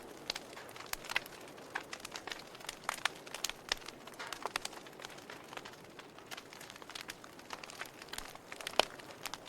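Wood fire crackling in a fireplace: irregular sharp pops and snaps over a soft steady hiss, with one louder pop near the end.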